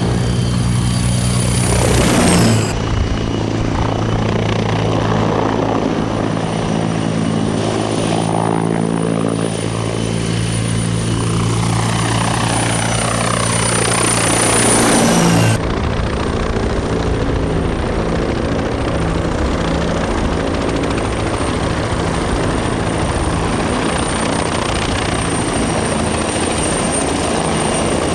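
T129 attack helicopter's rotor and twin turboshaft engines running steadily at close range, with a high engine whine over the rotor's low tones. The sound changes abruptly twice, about two and a half and fifteen and a half seconds in, and a whooshing sweep builds just before the second change.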